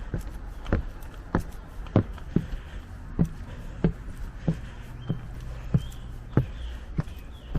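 Footsteps of a person walking at a steady, even pace: a sharp knock at each step, about three every two seconds, as one pair of footwear is tried for how quiet it walks.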